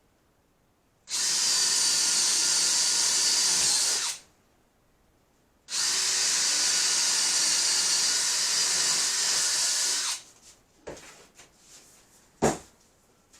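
Power drill running in two steady runs of about three and four and a half seconds, boring air holes in cardboard shipping boxes. A few light clicks and one sharp knock follow near the end.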